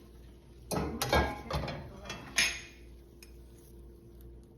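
Kitchen utensils knocking and clinking against dishware several times in the first half: food being plated.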